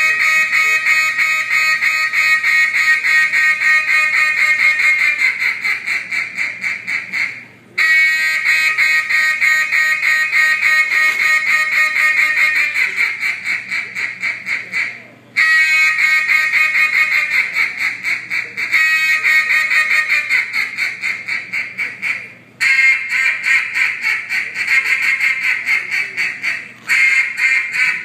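Duck call blown in a competition calling routine, imitating a hen mallard: long runs of rapid, loud quacks, each run starting strong and trailing off, broken by brief pauses every five to eight seconds.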